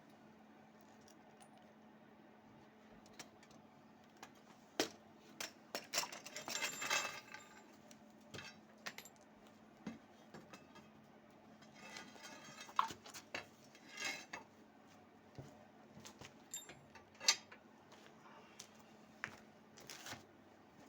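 Irregular metallic clinks and clanks of metal parts being handled, with clusters of rattling a few seconds in, mid-way and near the end, over a steady low hum.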